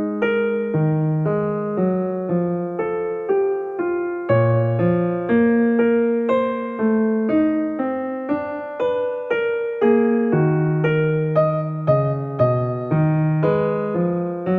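Soft background music: a piano playing a gentle melody of plucked-sounding notes, about two a second, each note struck and then dying away.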